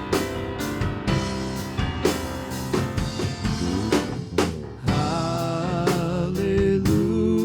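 Live church praise band playing a slow worship song, with a drum kit keeping a steady beat of bass drum and snare under sustained chords.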